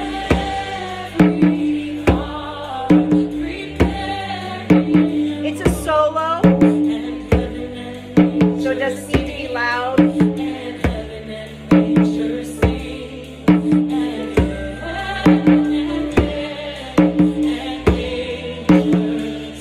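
Hand drum struck with open hands in a steady beat, playing along with recorded worship music with a sung melody and a repeating low accompaniment.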